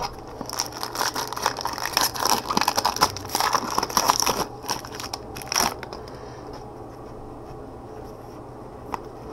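Trading cards being handled by gloved hands: dense crinkly scraping and rustling for about four seconds, a short burst of it a little later, then only light handling noise over a steady low hum.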